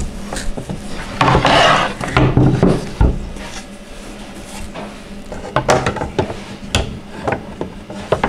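Doll-crib panels and rails being handled and fitted together: a scraping rub a little over a second in, then scattered knocks and clicks as a door panel is set into place against the side.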